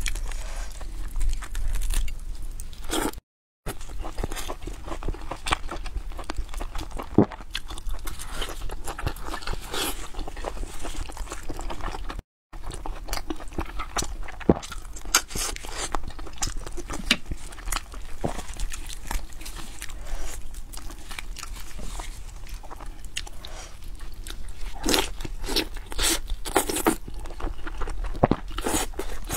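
A person eating braised pork close to a clip-on microphone: irregular biting, chewing and mouth sounds as meat is torn from the bone and chewed. The sound cuts out to silence briefly twice.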